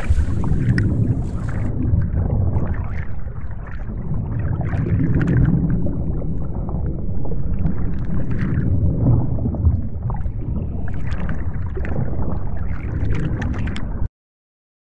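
Underwater ambience of a virtual-reality ocean scene: a loud, low, muffled rush of water. A brighter hiss drops away in the first two seconds, and the sound cuts off abruptly near the end.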